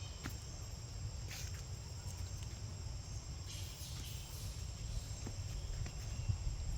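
Outdoor ambience: a steady high insect drone over a low rumble, with a few faint clicks.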